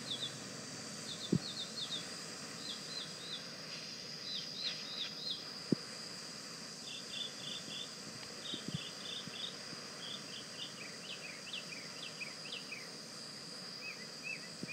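Small birds chirping in short, high, falling notes in irregular clusters over the steady hiss of a butane torch flame, with a few faint clicks.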